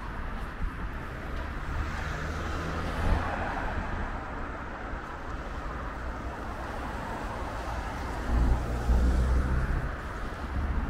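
City street traffic: a steady hum of vehicles, with two louder low rumbles of vehicles passing close, a couple of seconds in and again near the end.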